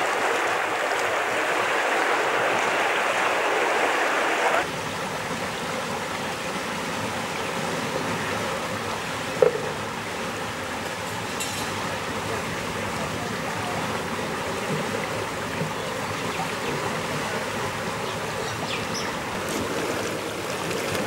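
Fast-moving floodwater rushing and splashing around tree trunks, a steady hiss of water. About four and a half seconds in, it drops abruptly to a quieter, even rush of flowing floodwater, with a single short click near the middle.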